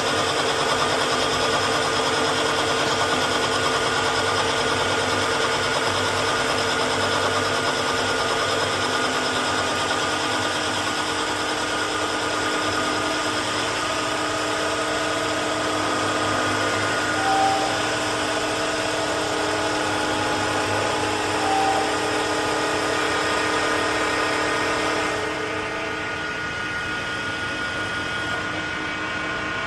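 CNC wood turning lathe running, with the steady whir and cutting noise of the machine at work. Two short high blips come in the middle, and the machine gets somewhat quieter near the end.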